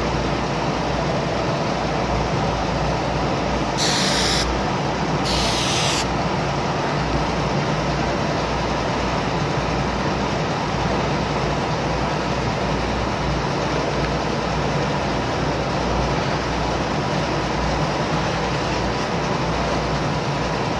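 Steady low hum and hiss of background machinery. About four seconds in, two short hisses of an aerosol spray-adhesive can come a second apart, each under a second long.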